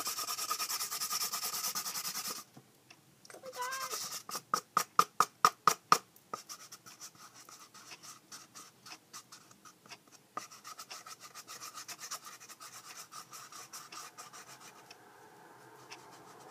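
Black tape being pulled off its roll and pressed around cardboard toilet paper tubes. There is a steady peeling hiss for the first couple of seconds, then a run of loud sharp clicks, then fainter, faster ticking.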